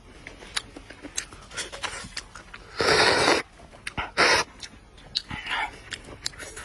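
A person eating homemade chicken soup: light clicks and taps from the bowl and mouth, with two loud breathy sips of the hot soup, one about three seconds in and a shorter one a second later.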